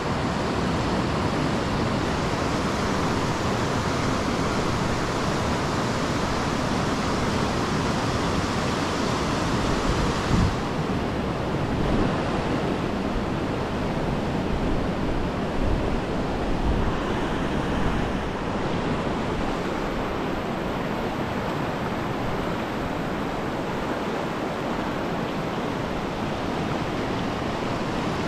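Steady rush of whitewater rapids in a fast mountain river, an even roar of water that never lets up. A few brief low bumps break in near the middle.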